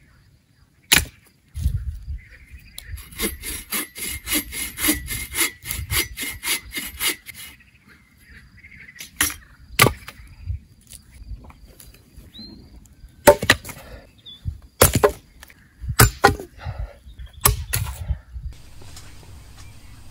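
Firewood being cut by hand. There is one sharp knock, then a few seconds of quick, even strokes, then a series of separate sharp blows, several in close pairs.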